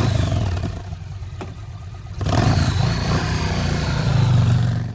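Off-road motorcycle engine on and off the throttle. It revs, eases back about a second in, then pulls hard again from about two seconds in with a rising whine.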